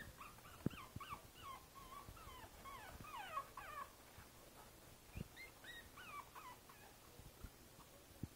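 Five-week-old Boston Terrier puppy whimpering: a quick run of short, high, squeaky whines through the first four seconds and a few more around six seconds. A few soft knocks come between them.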